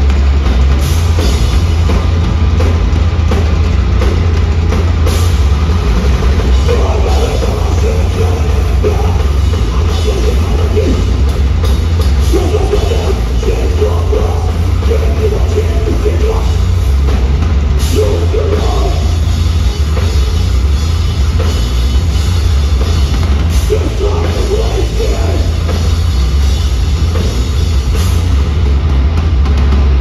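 Metalcore band playing live at full volume: a drum kit close by, with heavy guitars and a deep, steady bass.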